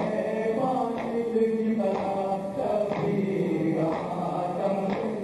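Male voices chanting a noha in unison, with chest-beating (matam) strikes landing about once a second.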